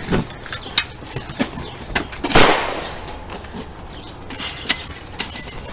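Scuffling and footsteps on concrete paving, with scattered short knocks. About two and a half seconds in comes one loud, sharp burst of noise that fades within half a second.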